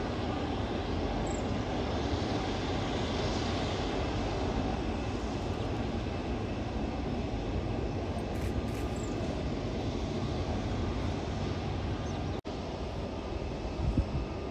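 Airbus Beluga XL's Rolls-Royce Trent 700 turbofan engines running at taxi power, a steady distant rumble and hiss. The sound cuts out for an instant about twelve seconds in, and a short low bump comes near the end.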